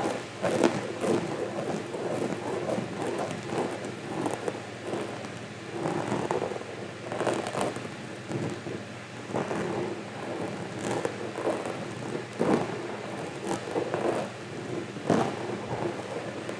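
Close-miked inaudible whispering: an uneven run of breathy, wordless bursts with short sharp clicks among them.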